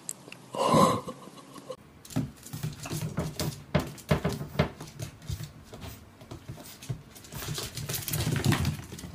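A bulldog puppy and a cat tussling on a tile floor, with many quick taps and scuffles of paws and claws and a longer burst of scuffling near the end. It opens with a short, loud cry.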